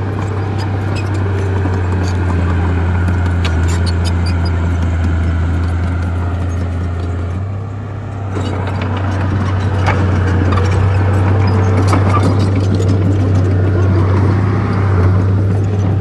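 Heavy diesel earth-moving machinery running with a steady deep engine drone and scattered clicks and clanks over it. The drone dips briefly about halfway through, then comes back a little louder.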